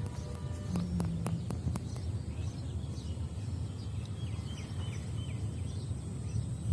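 Outdoor rural ambience: a steady low rumbling noise, a few sharp clicks about a second in, and a run of short, high bird chirps midway.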